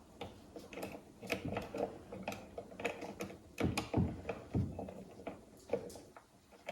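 Homemade puzzle box being handled: scattered light clicks and knocks as its parts are moved, with a few louder knocks about four seconds in.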